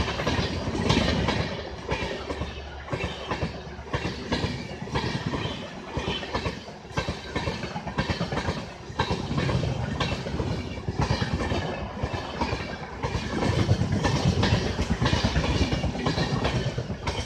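Passenger express train passing, its wheels clattering in a continuous run of clicks over the rail joints.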